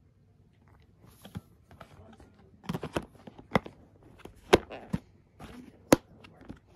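Handling noise close to the microphone: a run of irregular sharp clicks and taps with soft rustling, the loudest a little past the middle, as something is fumbled with and opened.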